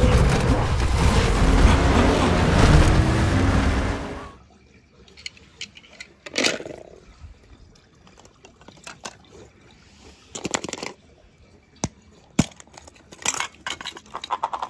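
A film soundtrack of music and effects that cuts off about four seconds in; then water splashing and sloshing as plastic toy eggs are handled in a shallow pool, with scattered plastic clicks and knocks of the eggs and their halves near the end.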